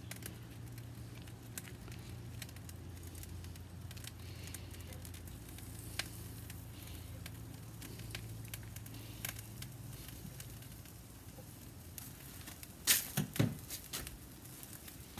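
Faint crackling and sizzling from a lump-charcoal kamado grill, with butter cubes melting on hot pork ribs, and scattered small ticks throughout. Near the end comes a short burst of louder knocks.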